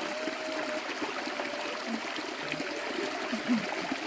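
Shallow, rocky stream running and trickling steadily over stones.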